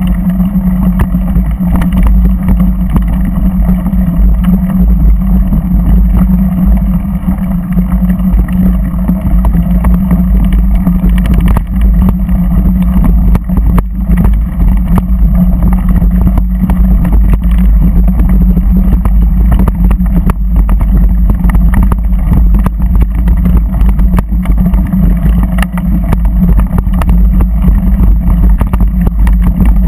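Off-road vehicle engine running at a steady pitch while driving over a rough dirt and stony track, with frequent knocks and rattles from the bumps.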